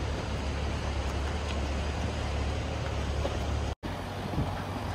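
Mahindra Thar 4x4 engine running low and steady as the vehicle creeps over a rocky track, with faint ticks of tyres on loose stones. The sound cuts out for an instant about four seconds in.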